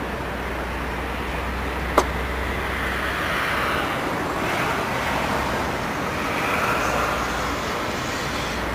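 Steady road traffic noise from passing vehicles, swelling slightly in places, with one sharp click about two seconds in.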